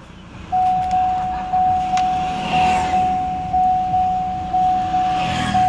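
Electronic warning beep: one steady high tone, starting about half a second in and pulsing about once a second. Low vehicle rumble runs underneath.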